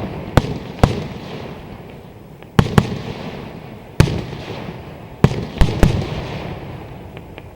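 Aerial fireworks shells bursting overhead: about nine sharp booms at uneven intervals, some in quick pairs, each followed by a rumbling echo that fades away.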